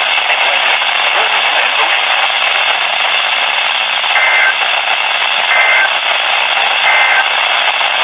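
Heavy radio static from a weak broadcast of an Emergency Alert System message. Three short, faint two-tone data bursts about a second and a half apart come through it about four, five and a half and seven seconds in: the SAME end-of-message code that closes the alert.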